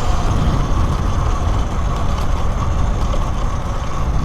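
Talaria Sting R electric dirt bike being ridden: a steady electric motor whine over heavy wind rumble on the microphone and tyre noise.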